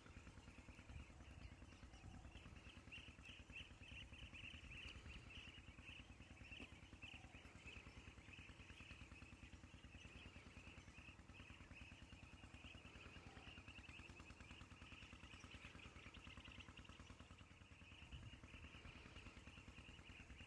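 Faint outdoor ambience: a steady, fluttering high-pitched chorus of insects or birds over a low, rapidly pulsing hum.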